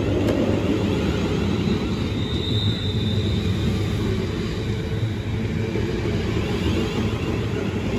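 A Class 350 Desiro electric multiple unit accelerating out of the platform past the listener. Its wheels and bogies rumble steadily on the rails, under a repeated rising electric whine from the traction equipment.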